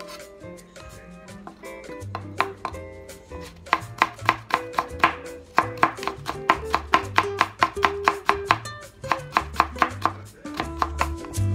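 Chef's knife slicing burdock root into thin strips on a wooden cutting board: a quick, even run of knife strokes against the board, about three or four a second. Soft background music with a bass line plays underneath.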